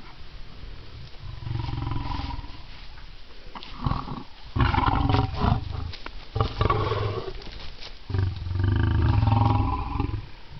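Lions growling over their food at feeding: long, low rumbling growls, with a louder, harsher run of growls about four seconds in.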